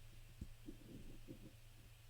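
Near silence: a faint steady low hum with a few soft, dull thumps.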